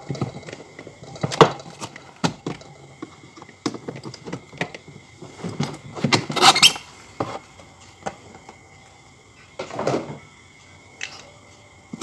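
The plastic evaporator cover inside a Toshiba Glacio two-door refrigerator's freezer is being pried off by hand. A series of sharp clicks and rattles of the plastic panel is heard, with the loudest, longer scraping noise about halfway through as the cover comes free.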